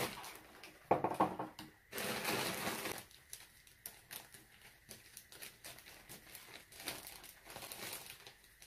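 Plastic bag full of jigsaw puzzle pieces crinkling as it is handled and cut open with scissors. The loudest rustle comes about two seconds in, followed by lighter crinkling and small clicks.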